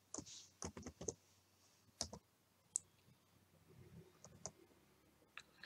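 Faint, scattered clicks of computer keys being typed: a quick run of several in the first second, then single clicks and small groups with gaps between them.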